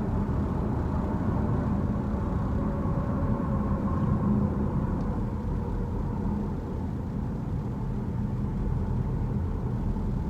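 Steady low rumble of road and engine noise inside a moving Genesis GV70's cabin.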